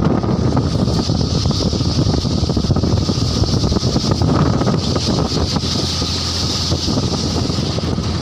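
Engine of an open vehicle running steadily under way, a low rapid pulsing rumble, with wind buffeting the microphone.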